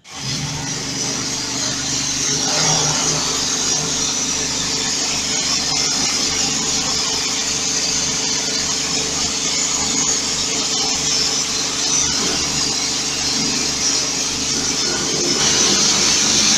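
Pressure washer running and spraying a jet of water onto a stainless-steel machine: a steady motor hum under the hiss of the spray, starting abruptly.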